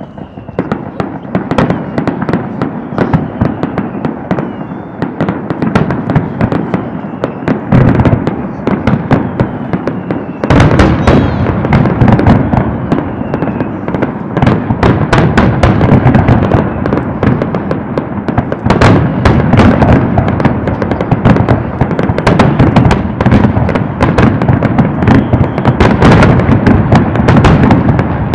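Aerial fireworks display: a dense, continuous barrage of bangs and crackles from bursting shells, getting markedly louder and denser about ten seconds in. A few faint descending whistles sound in the first part.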